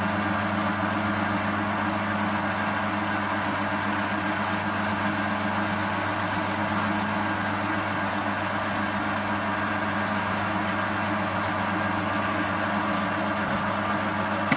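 CQ9325 bench metal lathe running with its chuck spinning: a steady machine hum.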